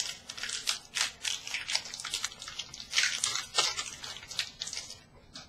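A trading-card pack wrapper crinkling and tearing as it is ripped open, then the cards slid and shuffled through the hands: a quick, uneven run of small crackles that stops about five seconds in.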